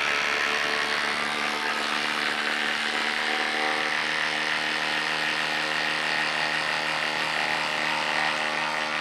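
Milwaukee cordless impact driver hammering steadily without a break as it drives a long lag screw into a wooden stump through a socket adapter, under heavy load.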